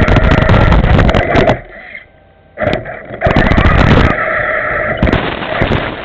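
Remote-control 4x4 truck driving, heard through a camera mounted on the truck itself: a loud motor whine with gear and chassis rattle over concrete. The motor cuts out about a second and a half in, with a brief blip, then starts up again about three seconds in.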